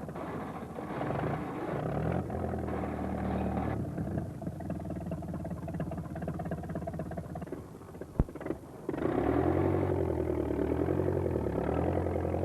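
Tractor engine revving and labouring, stuck in mud, its pitch rising and falling as it strains to pull free. A single sharp crack about eight seconds in, then the engine revs harder.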